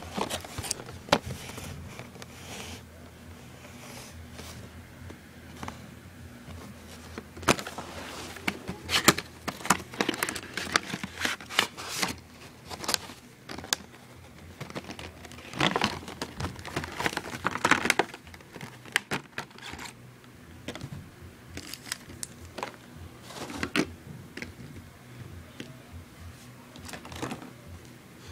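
Hands opening a Gemini Jets diecast model box and handling its clear plastic insert: irregular crinkling, rustling and sharp clicks of cardboard and plastic, busiest through the middle.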